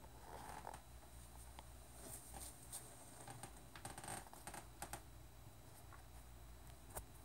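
Near silence: faint room hum with scattered soft clicks and rustles of handling noise.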